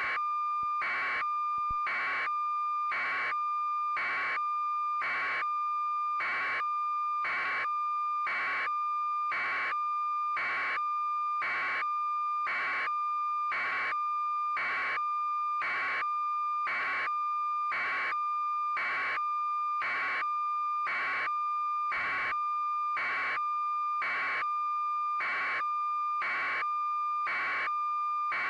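Steady, high electronic tone with a beep about once a second, repeating evenly throughout.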